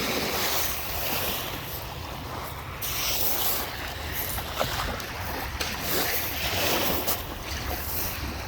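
Lake Michigan waves washing onto the beach in slow swells, with wind rumbling on the microphone.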